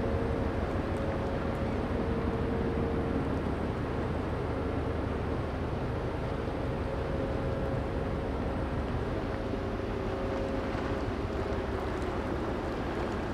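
Steady low rumble of ship engines from a large container ship and the tug working on a towline at its stern, with a faint steady hum over it.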